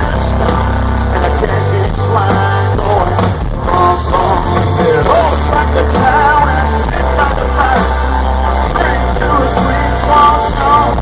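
Live country-rock band playing loudly: electric guitars and a steady bass, with singing over it.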